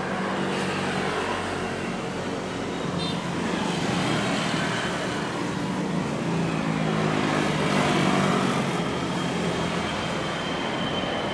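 Citilink Airbus A320's twin jet engines at takeoff thrust: a steady rushing roar through the takeoff roll and climb-out, with an engine tone that falls in pitch about seven seconds in as the jet passes.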